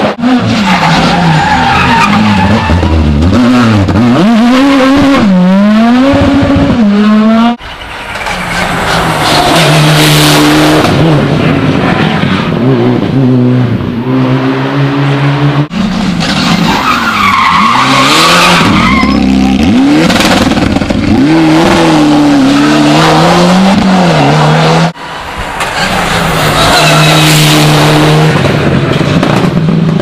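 Rally cars taken one after another through a hairpin, engines revving up and dropping back through gear changes. The sound breaks off abruptly three times, about 8, 16 and 25 seconds in, as a new pass begins.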